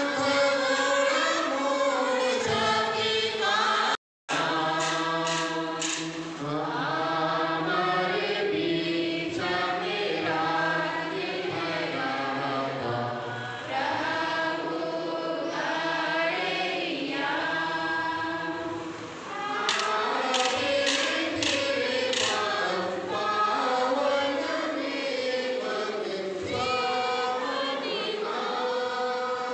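A congregation of men and women singing a hymn together, with sustained, slowly moving notes. The audio cuts out completely for a split second about four seconds in.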